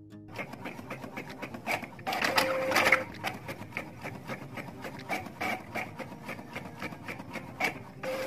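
Desktop printer printing a sheet: a steady run of rapid mechanical clicks and whirring as the print head moves and the paper advances. It gets louder for about a second, with a held hum, around two seconds in.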